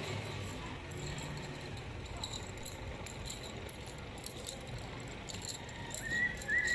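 Street ambience of a passing Good Friday penitents' procession: a steady low din with scattered light clicks and rattles, and a few short high-pitched notes near the end.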